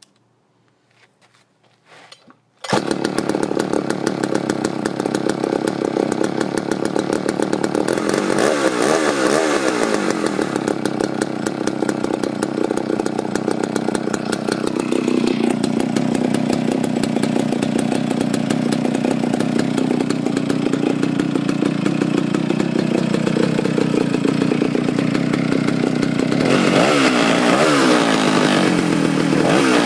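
Homelite 750 chainsaw power head's two-stroke engine starting on the first pull, already warm, about three seconds in, then running steadily. It is revved twice, once around eight seconds in and again near the end, and runs pretty good.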